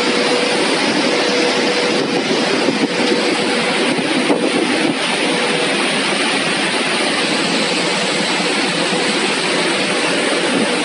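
Steady loud rush of air from large pedestal fans and the cooling fans of racked variable-frequency drives in an electrical control room, with a faint steady hum underneath.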